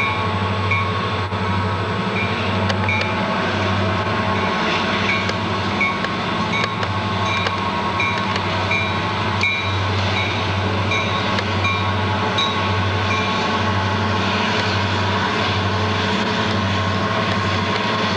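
Diesel-electric locomotives running through a rail yard: a steady engine drone with a low throb that swells and fades about once a second.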